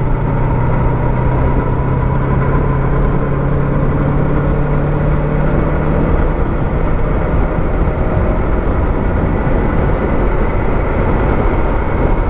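Yamaha MT-03's 321 cc parallel-twin engine running at a steady highway cruise, with wind and road noise over the microphone. The steady engine note fades about halfway through, leaving mostly wind and road rumble.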